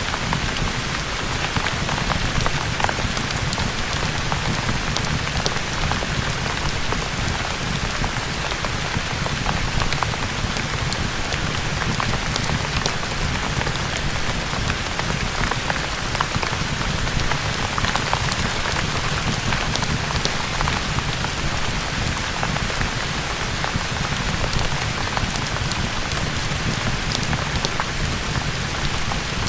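Steady heavy rain, an even hiss with a low rumble underneath and many scattered sharp ticks of drops.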